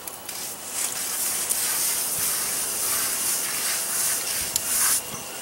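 Wet soft sponge rubbed over a fresh cement parge coat, a steady hiss with a short dip near the end, as the surface is smoothed to a swirl finish.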